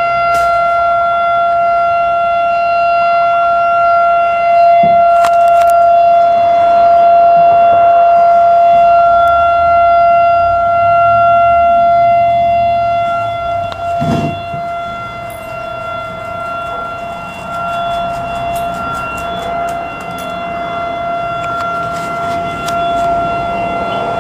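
Tsunami warning siren sounding one steady, unbroken tone. It is louder in the first half and somewhat fainter after a brief thump about halfway through.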